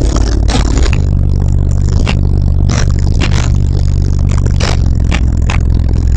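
Bass-heavy rap beat played at high volume through a car's subwoofer wall of two Fi SP4 18-inch subwoofers, with deep held bass notes that shift about a second in and sharp beat hits about twice a second.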